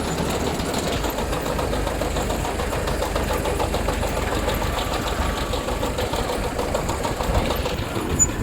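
A tractor engine runs steadily while a Preet potato harvester's machinery clatters along with it.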